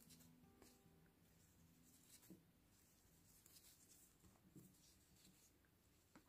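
Near silence, with faint rustling and a few soft ticks from a crochet hook working yarn by hand.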